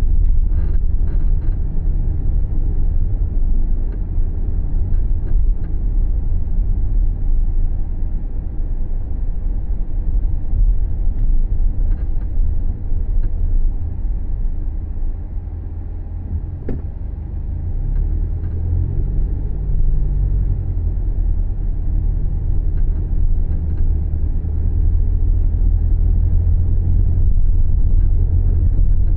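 Subaru Levorg being driven: steady low engine and road rumble, with a low engine tone that rises and falls again about 18 to 21 seconds in. A single sharp click sounds about 17 seconds in. The drive is recorded for an abnormal noise while driving, which the rumble does not single out.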